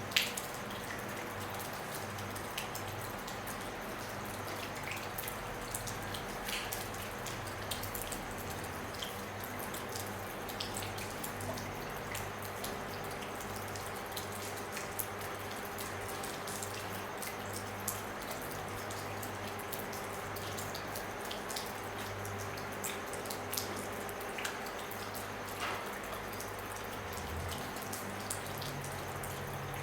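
Rain falling on a roof: a steady hiss with individual drops ticking here and there, one sharper drip right at the start.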